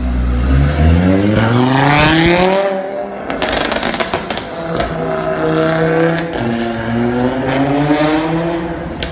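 Stage 3 tuned Audi RS3's turbocharged 2.5-litre five-cylinder engine, fitted with bigger turbos, accelerating hard, its pitch climbing steeply for about three seconds. A burst of crackles and pops follows as it comes off the throttle, then it pulls and climbs again near the end.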